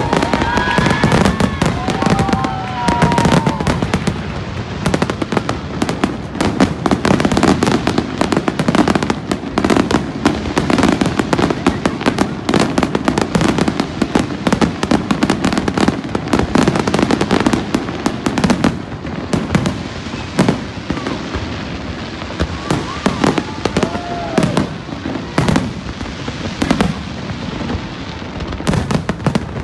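Aerial fireworks display going off continuously: a dense, rapid run of bangs and crackling from bursting shells throughout.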